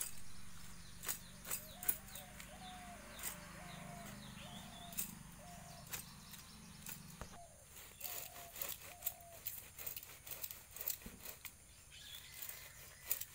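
An animal calling in a run of short, slightly falling notes, about two a second, which stops about seven seconds in and comes back briefly a second later, amid scattered sharp clicks.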